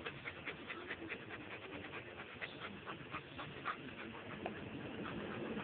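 A dog panting softly: a run of quick short breaths, several a second.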